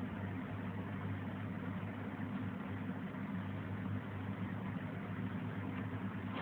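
Steady low machine hum with an even fan-like hiss, unchanging throughout.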